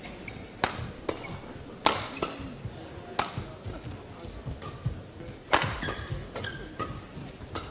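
Badminton rackets striking a shuttlecock back and forth in a fast doubles rally: about nine sharp, irregularly spaced hits, the loudest about two seconds in and again about five and a half seconds in.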